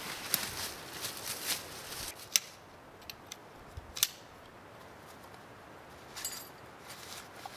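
A run of sharp clicks and crackles, then two loud single snaps and a short rapid rattle near the end.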